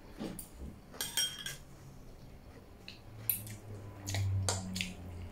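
A metal fork and spoon clinking and scraping against a ceramic plate as noodles are picked up, in scattered short clinks, most of them in the second half.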